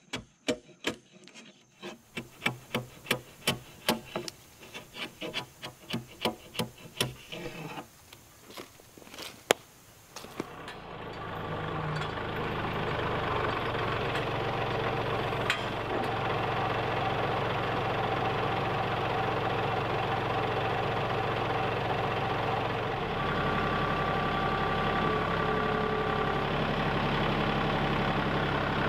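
A timber-framing slick pares the end of a hewn wooden beam in a quick series of sharp strokes, about two a second. After about ten seconds a Kubota tractor's diesel engine comes in and runs steadily as its front loader lifts the beam, and the engine note shifts about two-thirds of the way in.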